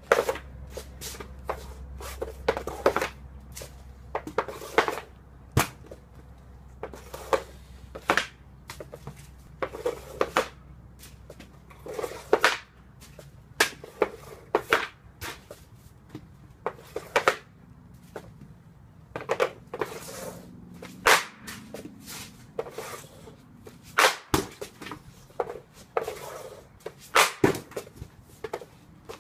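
Ice hockey stick shooting pucks off a plastic shooting pad: a steady series of sharp cracks as the blade strikes each puck and the puck hits the goal netting and backstop, roughly one shot every one to two seconds.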